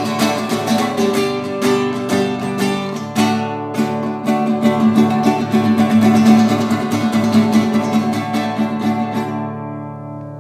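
Acoustic guitar strummed in a steady rhythm, then a final chord left ringing and fading out near the end.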